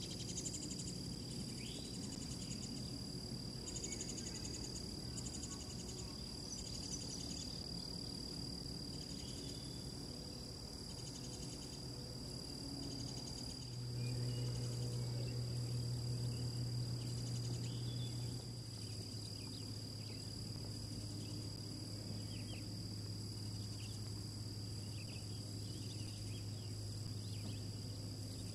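Marsh ambience: a steady high-pitched insect chorus, with faint short chirps scattered through it, over a low steady hum that grows louder for about four seconds in the middle.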